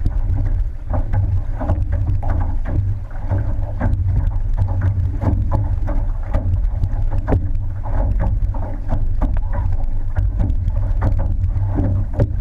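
Outrigger canoe crew paddling at race pace: repeated paddle splashes and water rushing past the hull, over a heavy rumble of wind on the microphone.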